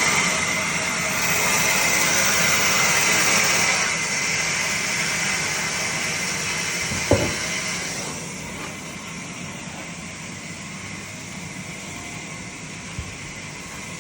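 Woodworking machinery running with a steady whirring hiss. There is one sharp knock about seven seconds in, and from about eight seconds on it settles to a quieter steady hum.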